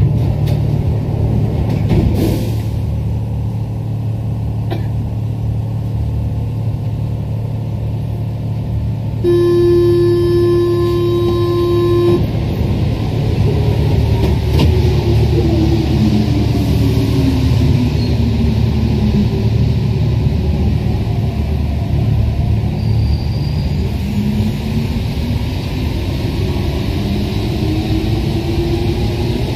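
Rubber-tyred Paris Metro Line 1 train running through a tunnel with a steady low rumble. About nine seconds in, a horn sounds one steady tone for about three seconds. Then the whine of electric traction motors falls in pitch and later rises again.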